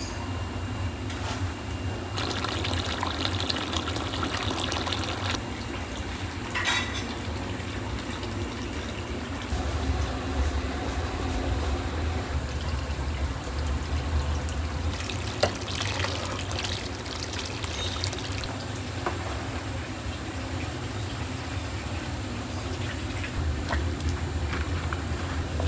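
Liquid being ladled, poured and stirred in large metal cooking pots of broth, with several short stretches of splashing and clatter over a steady low hum.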